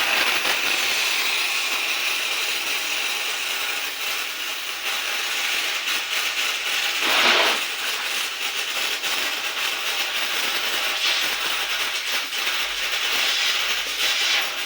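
Refrigerant gas hissing steadily from a window air conditioner's gas line, with a louder swell about seven seconds in.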